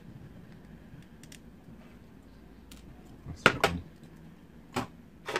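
Small hand tools being set down on a hard workbench: a few sharp knocks and clatters, a close pair about three and a half seconds in being the loudest, with two more near the end and faint ticks before.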